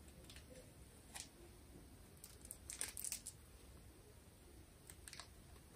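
Faint crackling rustles of adhesive tape being peeled off the skin at the outer corner of the eye, in a few short spells.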